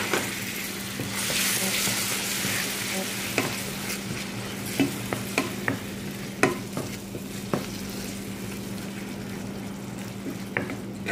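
Yogurt sizzling in hot oil and spice paste in a frying pan, loudest in the first few seconds after it goes in. A wooden spoon then stirs it, knocking against the pan in sharp, irregular taps. A steady low hum runs underneath.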